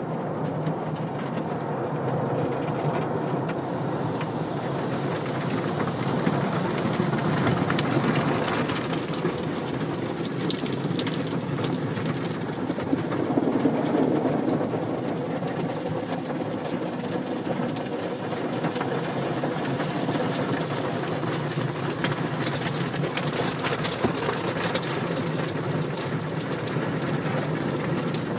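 Automatic car wash machinery running: a steady rumbling, rattling mechanical drone that swells a little about halfway through.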